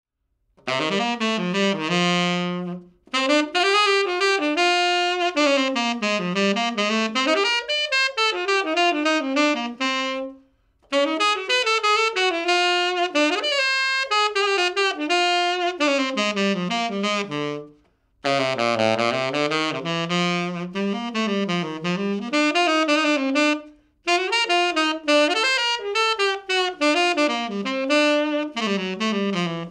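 Selmer Mark VI tenor saxophone played solo and unaccompanied: five flowing melodic phrases, each separated by a brief pause for breath.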